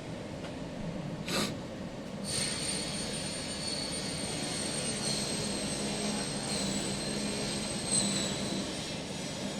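MOPA fiber laser marking machine running, with a steady machine hiss; a short click about a second in, then a high-pitched whine starts a couple of seconds in and holds, shifting slightly in pitch as it marks.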